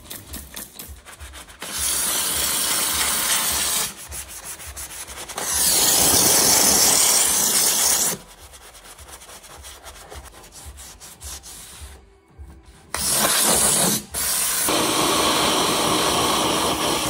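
A steam cleaner jet hissing in bursts of a few seconds while a stiff detailing brush scrubs mud off the bare metal floor and a seat-mounting bracket. Near the end a wet-dry vacuum nozzle sucks along the floor.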